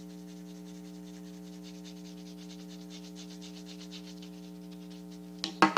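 Colored pencil shading on construction paper in quick, light, scratchy back-and-forth strokes, over a steady electrical hum. Near the end a sudden, louder clatter of handling breaks in.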